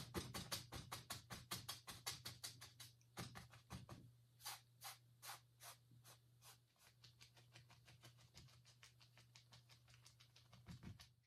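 Oil-painting brush tapping on a stretched canvas, to mist the base of painted mountains. The taps come in a quick run of about five a second, slow to a few louder, spaced taps around the middle, then go on faster and fainter, over a steady low hum.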